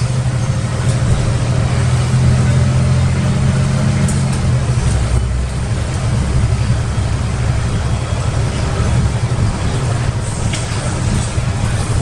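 Karosa B961 articulated city bus driving under way, heard from inside the cabin: a steady low diesel engine drone with tyre and road noise and body rattle. The engine drone eases about four seconds in.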